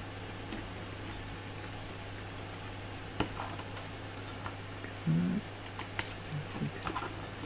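Sparse light clicks and scratches of small screws and 3D-printed plastic parts being handled, with a screwdriver set to a screw, over a steady low hum.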